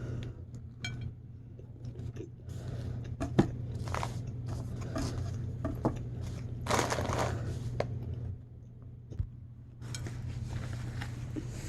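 Small kitchen handling noises: scattered clicks, crinkles and scrapes, with a longer rustle about two-thirds of the way in, over a steady low hum.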